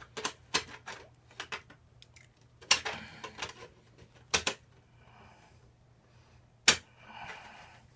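Metal exhaust pipe being handled and fitted: scattered sharp clicks and knocks of metal on metal with short scrapes between them, the loudest knock near the end.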